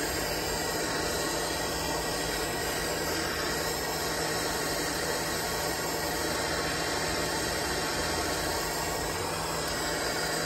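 Handheld propane torch burning with a steady hiss, its flame held on a copper pipe joint while solder is fed in.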